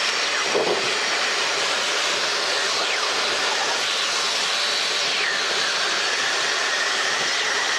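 Steady cabin noise of a light helicopter in flight: an even rush of engine, rotor and wind noise. A faint, steady high tone comes in about five seconds in.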